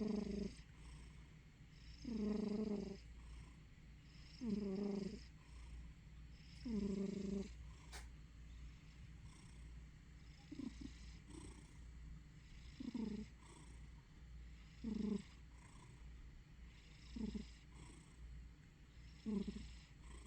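Sleeping domestic cat snoring and purring, a short pitched sound on each breath, about two seconds apart.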